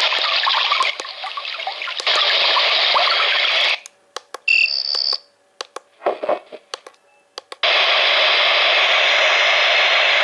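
Digital alarm clock's small built-in speaker playing a steady, hiss-like sleep-sound track, which cuts off a little under four seconds in. A few button clicks and a short electronic beep follow as the sounds are switched, and about eight seconds in another steady noise track starts.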